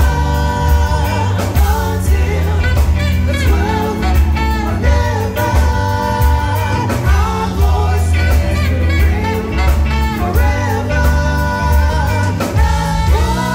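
Live band performing a song: several vocalists singing together over drum kit, electric bass and keyboards, with a strong bass line under the voices.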